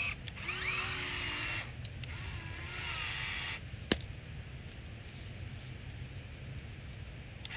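Radio-controlled excavator's small electric motors and hydraulic pump whining in short bursts, the pitch rising and falling as the machine works. There is one sharp click about four seconds in.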